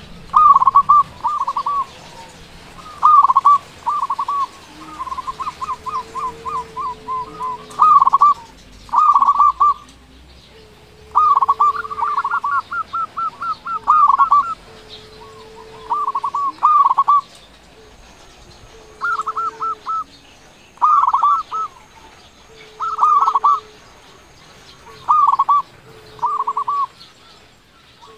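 Zebra dove (perkutut) singing loudly: short phrases of rapid staccato coo notes, repeated about every two seconds. A fainter, lower drawn-out note falls between many of the phrases.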